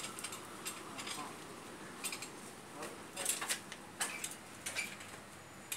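Steel scaffolding frames clinking and knocking as they are handled and lifted, a string of sharp metallic taps with a louder cluster about three seconds in.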